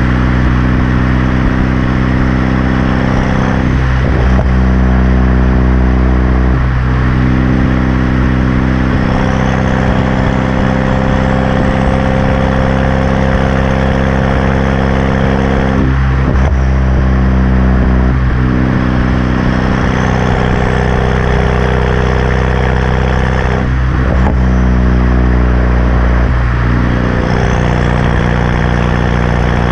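2013 BMW 328i's turbocharged four-cylinder engine idling through an aftermarket exhaust with its muffler and resonator removed, a steady loud drone whose pitch steps slightly up and down every few seconds, typical of a cold-start idle settling.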